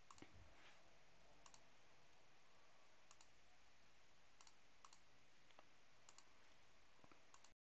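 Faint computer mouse clicks as dialog buttons are pressed, about eight in all, several heard as quick press-and-release pairs, over a low steady hiss. The sound stops dead near the end.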